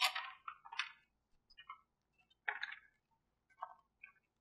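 Magazine pages being turned by hand: a few short paper rustles, the loudest cluster at the start, another about halfway through and small faint ones near the end.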